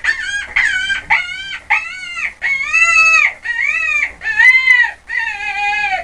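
A rabbit calling: a rapid series of about ten high, wailing squeals, each rising and then falling in pitch. The later squeals are longer and more drawn out.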